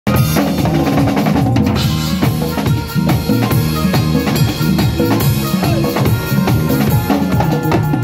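Acoustic drum kit played in a steady groove, with bass drum, snare and cymbal hits following close on one another. Underneath runs a line of low pitched notes that changes from note to note.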